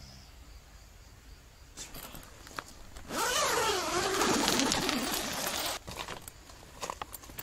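Car-docking tent's door zipper (Urbanside Protect 3) pulled open by hand. It zips loudly for about three seconds starting about three seconds in, its pitch sweeping up and down as the pull speeds and slows. A few brief rustles and taps follow.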